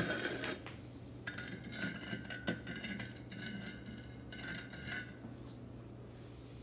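Rim of an upside-down cocktail glass twisted in coarse red-tinted sugar on a china plate. A light clink as the glass touches the plate, then a gritty scraping in two stretches of about two seconds each.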